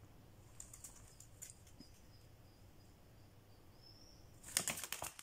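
A common swift fledgling scrabbling with its claws on the cardboard and cloth edge of its box and flapping its wings. A few faint scratches come first, then a burst of scratchy clicks and rustling near the end as it lets go of the box.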